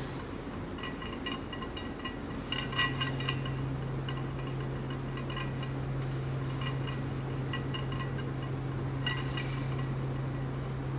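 Steady low hum of room tone, with scattered light clinks and taps that ring briefly, a cluster of them about three seconds in.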